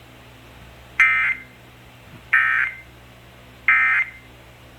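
Emergency Alert System end-of-message data bursts: three short, buzzy SAME digital bursts about a second and a third apart, the signal that closes an EAS alert.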